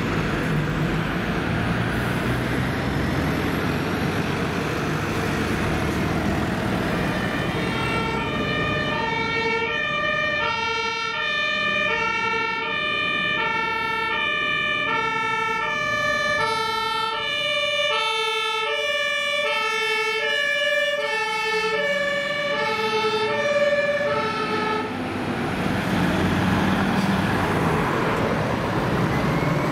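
A fire engine's German two-tone siren (Martinshorn), alternating between a high and a low note, starts about 8 s in and cuts off about 25 s in. Road traffic and lorry engines run underneath throughout.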